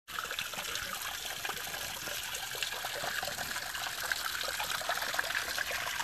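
Small waterfall trickling and splashing over a rock ledge: a steady, hissy rush of falling water with many small splashes.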